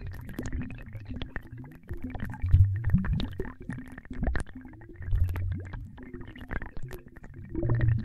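Synthetic water-bubble sound effect: an irregular stream of low, gurgling bubbles and sharp little pops, with short pitch glides up and down. It swells loudest about two and a half seconds in.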